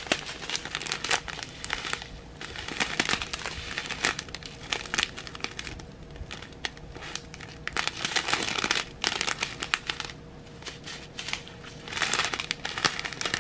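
Small clear plastic bags of diamond painting drills crinkling on and off as they are handled and shown one after another.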